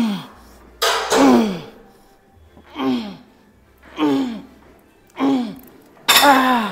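A man grunting with effort, a short breathy grunt falling in pitch about once a second, six in all, as he strains through the reps of a lifting set.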